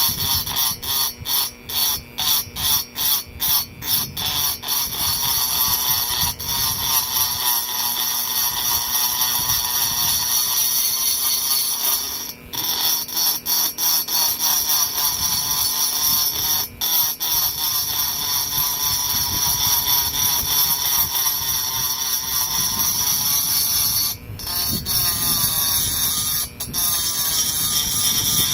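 High-speed rotary grinder with a cutter bit porting a chainsaw cylinder, whining as it cuts from the aluminium into the Nikasil bore plating. It runs in a quick string of short spurts at first, then grinds steadily with a few brief stops.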